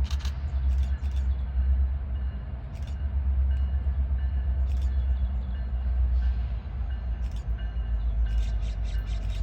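Train rolling by with a steady low rumble and scattered sharp clicks, the clicks turning into a regular run of about four a second near the end.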